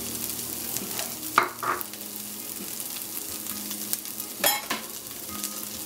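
Beans sizzling in a little hot oil in an aluminium pan while a plastic spoon stirs them, scraping the pan a few times, loudest about one and a half seconds in and again past four seconds. The beans are being fried until the oil cooks off.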